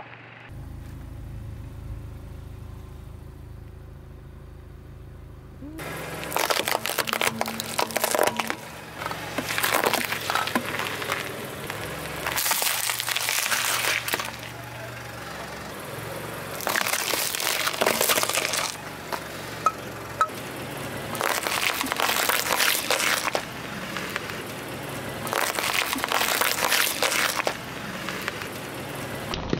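Car tyre rolling over and crushing assorted objects on asphalt: a low steady hum for about six seconds, then a series of about six crunching, crackling bursts, each a second or two long.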